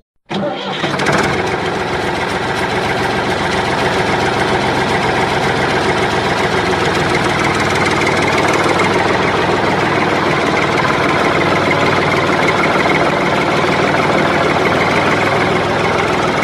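An engine running steadily, building up over about the first second and then holding an even, unbroken sound.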